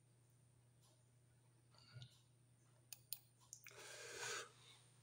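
A few faint computer mouse clicks between about two and three seconds in, over a low steady hum, with a soft rushing noise shortly before the end.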